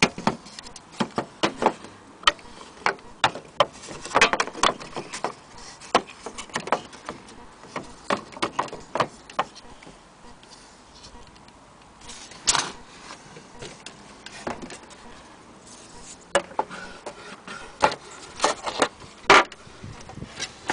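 Loose turned wooden finials and carved parts of an antique Vienna wall clock case being handled, giving irregular clicks and knocks, in clusters about four seconds in and again near the end.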